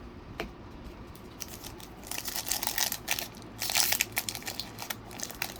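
Foil Pokémon booster pack wrapper being torn open and crinkled, in irregular crackling bursts that start about two seconds in.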